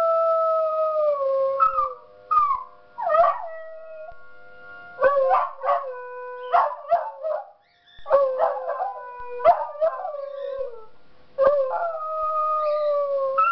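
Two beagles howling at a tornado warning siren: a long, slightly falling howl at the start and another near the end, with a run of shorter yelping bays in between. The siren sounds underneath as a faint steady tone.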